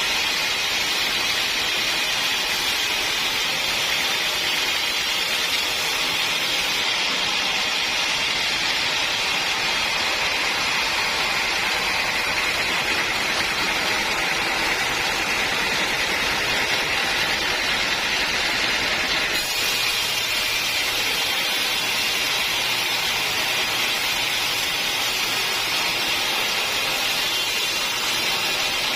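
Sawmill saw cutting through old teak wood: a steady, loud, hissing machine noise. Its upper register changes abruptly about seven seconds in and again near twenty seconds.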